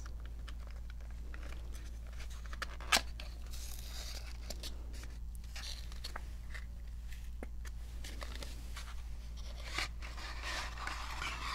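Close-miked handling and opening of a small cosmetics box: scattered crinkles, scrapes and small clicks, with one sharp click about three seconds in and a longer rustle near the end, over a low steady hum.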